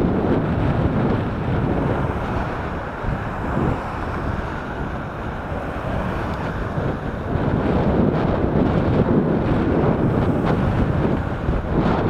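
Strong headwind buffeting the microphone of a camera on a moving bicycle, making a loud, dense rumble that swells and dips, growing louder in the second half.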